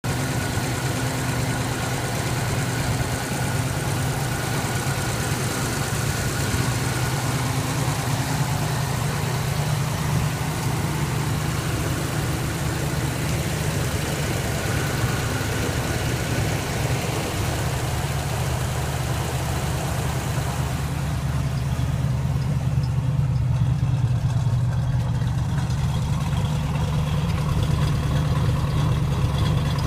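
1967 Pontiac Firebird's 326 cubic-inch H.O. V8 idling steadily. It is first heard at the engine bay; about twenty seconds in it is heard at the tailpipe, where the higher engine-bay noise drops away and the low exhaust note takes over.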